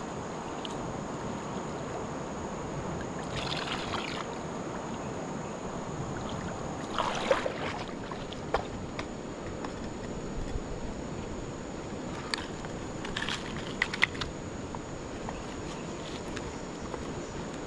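Steady rush of flowing river water, with a few short knocks and clicks now and then.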